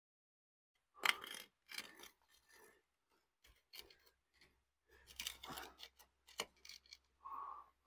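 Toothed plywood wheel-leveler pieces scraping and rubbing against each other and the asphalt as they are handled, in a string of short, faint scrapes starting about a second in.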